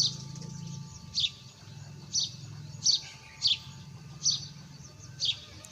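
A bird chirping repeatedly in the background: seven short, high chirps, each a little under a second apart.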